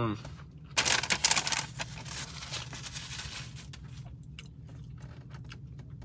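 Paper food wrapper rustling and crinkling, loudest in a burst about a second in and softer for a couple of seconds after, then a few light handling clicks, over a steady low hum.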